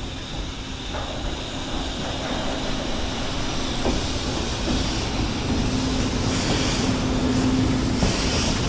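An electric-locomotive-hauled freight train approaching, getting steadily louder, with a steady hum that strengthens about halfway in and a few clacks of wheels over the rails.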